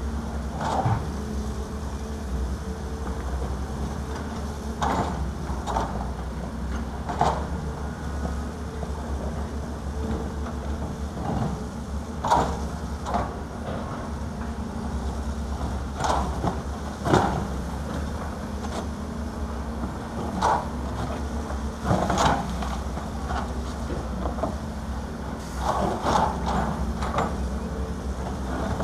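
Heavy diesel engines of excavators at work, running steadily with a constant low hum. About a dozen sharp clanks and knocks come at irregular intervals, as buckets swing and dump earth and rock into a steel dump-truck bed.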